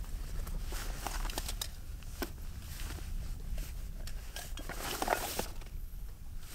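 Gear being unpacked from a fabric rucksack: scattered rustles and clicks of cloth and items being handled and pulled out, with a louder rustle about five seconds in.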